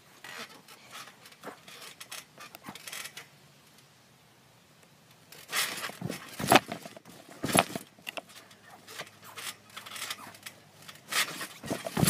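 Thumps and rattles of a trampoline mat as a person lands on it doing handstands and flips, picked up by a camera lying on the mat. A few sharp thumps come about halfway through and again near the end, with light scraping and rustling in between.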